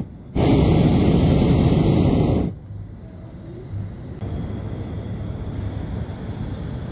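Hot-air balloon's propane burner firing one blast of about two seconds: a loud, steady roar that starts and cuts off sharply. After it a quieter steady low hiss remains.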